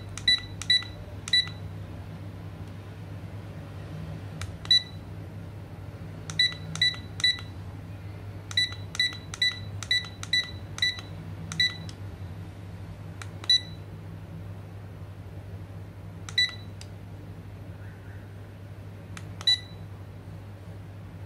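Wooden cube LED alarm clock beeping once for each button press while the date is set: about eighteen short high-pitched beeps, some in quick runs of three to six, others a few seconds apart. A low steady hum runs underneath.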